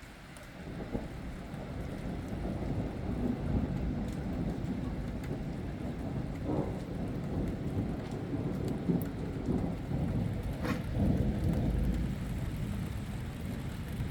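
Thunder rumbling over steady rain during a thunderstorm. The rumble builds about a second in, rolls on and is loudest near the end.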